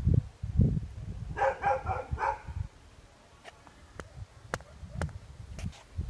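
A dog barking four times in quick succession about a second and a half in, over a low rumble. A few sharp clicks follow in the quieter second half.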